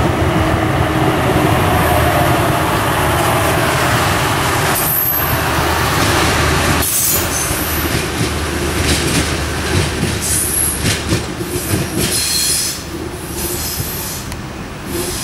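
Adelaide Metro diesel railcar passing close by: a steady engine and wheel rumble, with wheel squeal coming in short high bursts in the second half. It fades as the railcar pulls away near the end.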